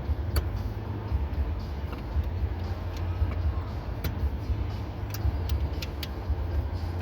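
A steady low rumble throughout, with scattered sharp clicks and taps, several close together in the second half, from small parts being handled.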